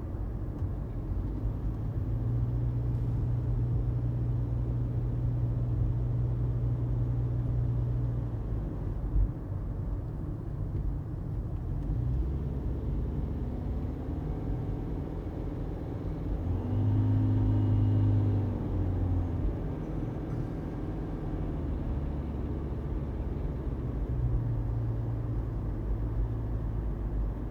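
A 2018 Toyota Prius driving: a steady low drone of engine and road noise, its hum shifting in pitch. About 17 seconds in it grows louder, with a pitched hum, for about two seconds. A single brief knock comes about nine seconds in.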